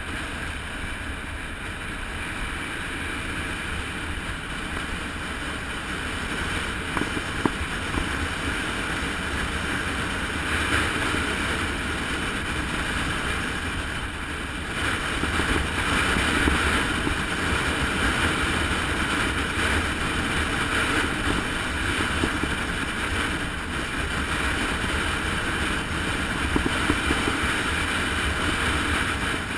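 Wind rushing over the microphone of a camera on a fast road descent, with tyre and road rumble underneath; it grows louder about halfway through as speed builds, with a couple of sharp knocks from bumps.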